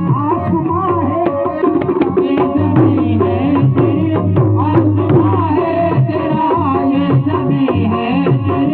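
Qawwali music: a harmonium holding sustained chords over a fast, steady hand-drum rhythm.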